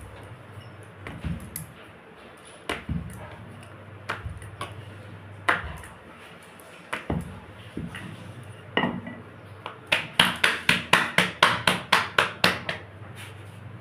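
Roti dough being slapped rapidly between the palms to flatten it by hand: a quick run of about a dozen sharp slaps, roughly five a second, about ten seconds in. Before that come scattered single knocks and clatters of kitchen utensils.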